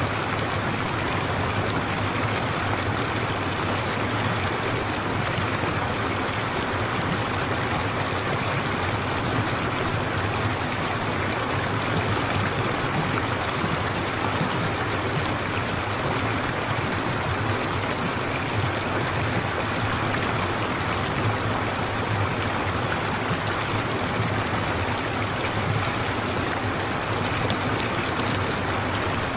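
Steady rush of running water, like a flowing stream, holding an even level throughout: the masking sound track of a subliminal recording.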